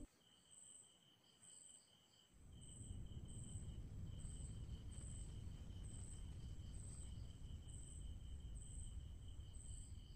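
Crickets chirping in a regular rhythm, a chirp about every three-quarters of a second over a steady high trill. A low rumble comes in about two seconds in.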